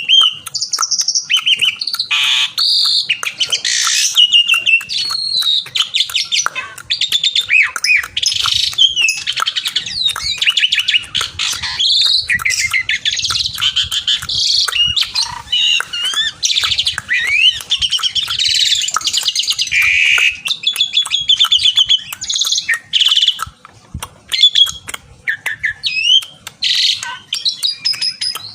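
Asian pied starling singing vigorously: a loud, unbroken stream of varied whistles, rapid trills and harsh chattering notes, with many sharp clicks.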